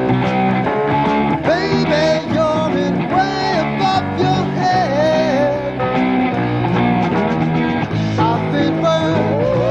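Rock band playing an instrumental passage, with electric guitar and bass over drums, and some sung or bending lead notes.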